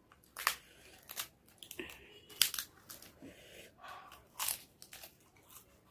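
Crisp fried papad (poppadom) crunching as it is broken by hand and bitten: a string of sharp, dry cracks.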